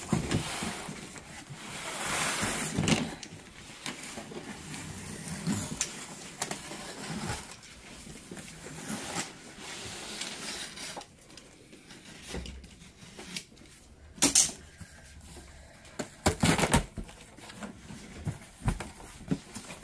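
Items and their packaging being rummaged through and handled: irregular rustling, crinkling and light knocking, with two louder sharp knocks in the last third.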